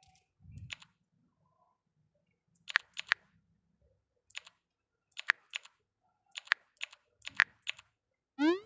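A dozen or so sharp clicks at irregular intervals, some in quick pairs, then a short rising sweep near the end.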